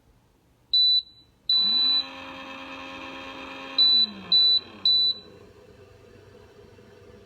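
Keurig K-Cafe coffee maker beeping: a short beep, a longer one, then three quick beeps a little later. A motor inside spins up with the longer beep, runs steadily for about three seconds and winds down, leaving a faint steady hum.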